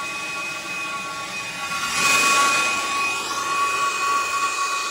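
Brazing torch flame running with a hiss and a steady high whistle while heating a brazed copper joint to free the expansion valve; the hiss swells briefly about two seconds in.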